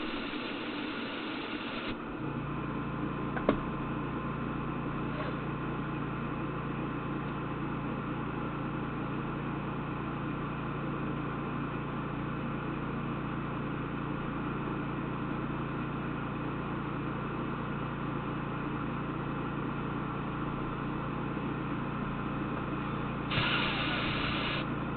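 A hiss for the first two seconds gives way to a steady electric machine hum, with a single sharp click about three and a half seconds in.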